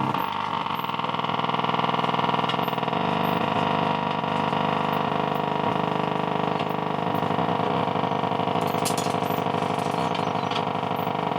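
Astor valve radio's loudspeaker giving out a steady buzzing drone with many overtones instead of a station, a fault noise from the set under repair. A few sharp crackles come through about nine seconds in.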